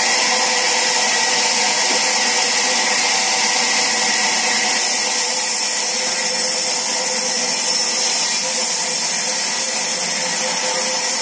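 Sawmill saw machinery running steadily: a constant machine hum with a hissing edge that does not change.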